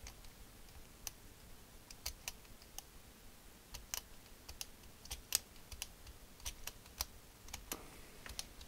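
Plastic piano-key transport buttons of an opened Atari XC12 cassette mechanism clicking as they are pressed and released, a faint irregular series of sharp clicks. The fast-forward and rewind keys are being worked to check that the mechanism engages.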